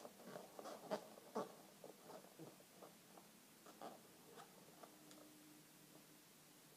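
Inflated latex 260 twisting balloons faintly rubbing and squeaking against each other and the hands as a balloon figure is handled and twisted, in a run of short squeaks and rubs that thin out after about four seconds.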